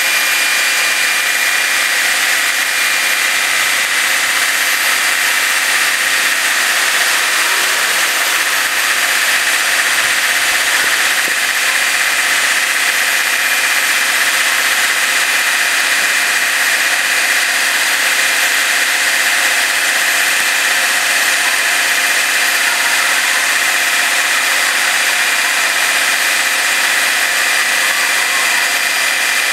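Steady mechanical drone of a running engine, with a thin high whine held at one pitch.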